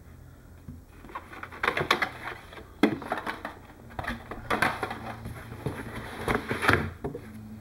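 Unboxing noise: a plastic accessory tray is lifted out of a polystyrene foam packing insert and the packaging is handled, with irregular scrapes, knocks and rustles.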